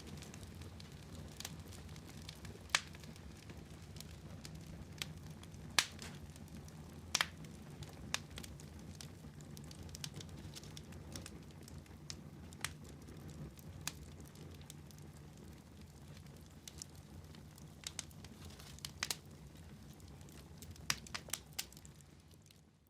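Wood fire crackling in a fireplace: a steady low rumble of flames under irregular sharp pops and snaps, a few of them louder than the rest. The sound fades out right at the end.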